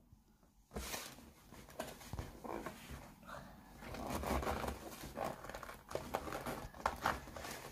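Fingers scratching and prying at a small cardboard toy box to get it open: uneven scraping and rustling with a few small taps, starting about a second in.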